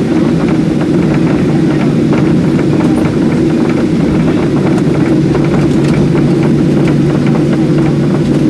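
Steady hum of a Boeing 737-700's CFM56 jet engines heard from inside the passenger cabin, with faint scattered ticks and rattles over it.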